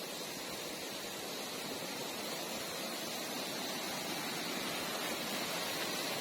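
Steady rushing of a forest stream and waterfall, an even wash of water noise that slowly grows louder toward the end.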